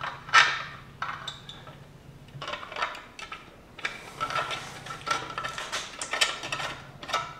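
Hard plastic clicks and knocks of a 3D-printed motor-mount mock-up being handled and set against an LS V8 engine block: one sharp knock just under a second in, then scattered light clattering.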